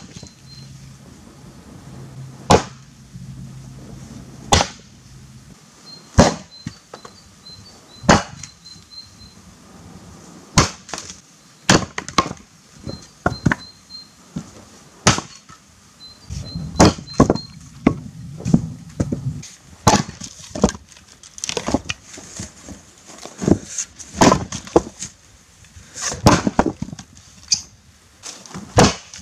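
Helko Werk Tasmanian axe striking and splitting firewood rounds: a long series of sharp separate wooden cracks, some in quick clusters as split pieces knock together. Faint small bird chirps in the background.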